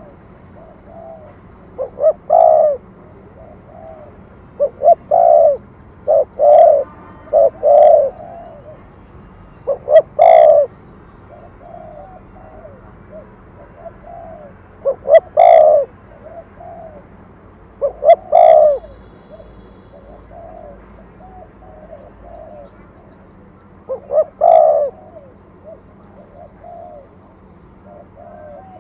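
Spotted dove cooing its 'thổ thúc gù' song: about eight loud phrases, each a couple of short notes and a longer coo, at uneven gaps of one to six seconds, with softer coos in between.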